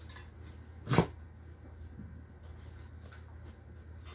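A dog makes one short, sharp vocal sound about a second in, much louder than anything else, over a low steady hum.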